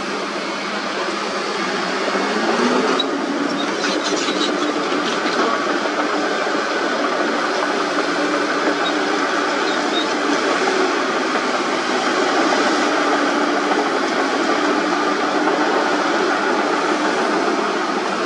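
Heavy diesel earthmoving machinery running: the engines of a crawler bulldozer and a dump truck tipping its load, one engine rising in pitch about two seconds in and then holding steady, with a few metallic clanks a little later.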